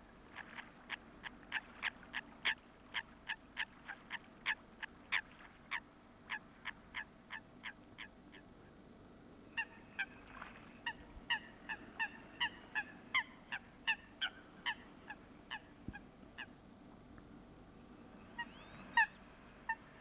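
Waterbirds calling in long runs of short repeated calls, about three a second. A first run lasts about eight seconds, a second run with clearer, more tonal notes starts about ten seconds in, and a couple of single calls come near the end.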